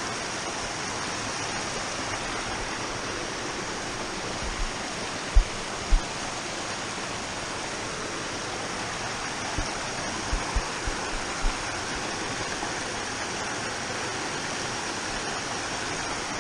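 A waterfall and its stream rushing steadily, with a few short low thumps about five to six seconds in and several more a few seconds later.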